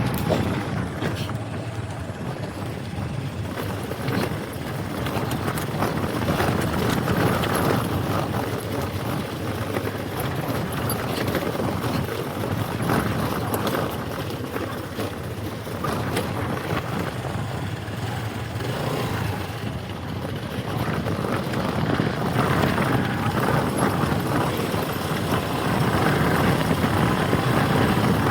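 Motor scooter running while being ridden, engine and road noise steady.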